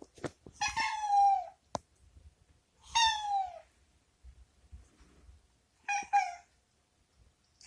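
Domestic cat meowing three times, drawn-out calls that fall in pitch at the end, the third one shorter: the cat is asking to be let out of the bathroom.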